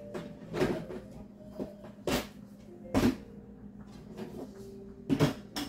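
Household items being handled out of sight: about five sharp knocks and clatters, like containers being moved around and set down on a hard surface or in a drawer.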